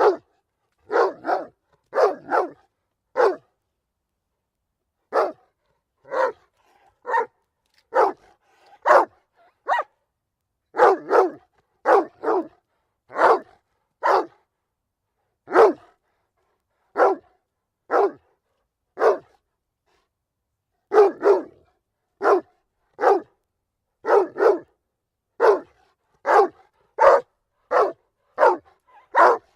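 A dog barking repeatedly: single short sharp barks, roughly one a second, sometimes in quick pairs, with a pause of about two seconds near the start.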